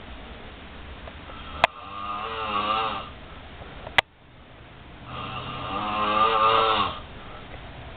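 A person snoring in sleep: two long snores of about two seconds each, with a wavering pitched buzz and a quieter pause between them. Two sharp clicks come, one just before the first snore and one right after it.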